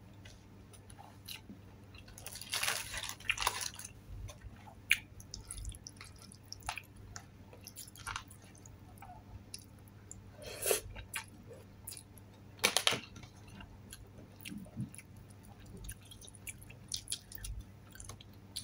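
Close-up chewing and mouth sounds of someone eating palabok noodles: irregular soft clicks, with louder clusters about three seconds in and twice more in the middle.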